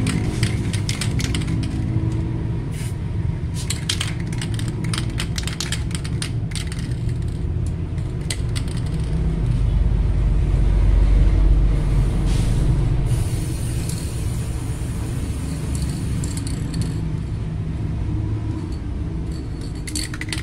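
Aerosol spray paint can being shaken, its mixing ball rattling in quick clicks for the first several seconds, then a steady spray hiss through the second half as paint goes onto the bumper. A constant low rumble sits underneath.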